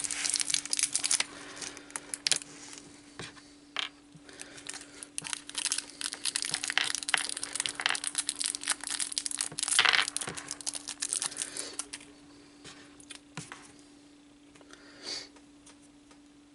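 Plastic parts packaging being handled, crinkling and tearing in dense bursts for about twelve seconds, then only a few faint clicks. A steady low hum runs underneath.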